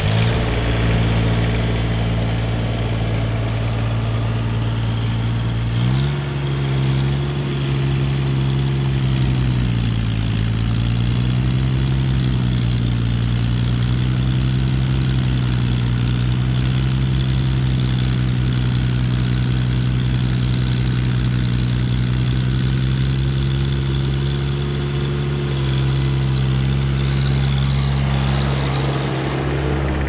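Mahindra eMax 20S HST compact tractor's small three-cylinder diesel running steadily while clearing snow. It speeds up about six seconds in, dips briefly near ten seconds, then holds an even hum.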